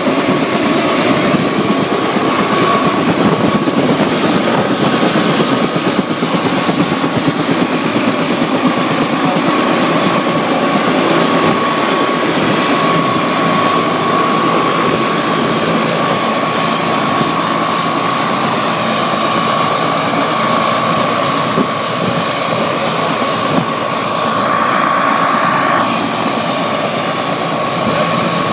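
Bell 206 helicopter running on the ground with its rotor turning: the steady drone of the rotor and turbine with a constant high whine over it.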